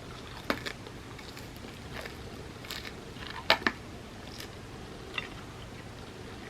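Close-miked eating sounds: scattered sharp crunches and wet mouth clicks of chewing and biting food, the loudest two in quick succession about three and a half seconds in, over a steady low hiss.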